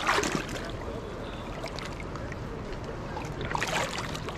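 River water sloshing and splashing around a landing net held in the current, with a sharper splash right at the start and another near the end.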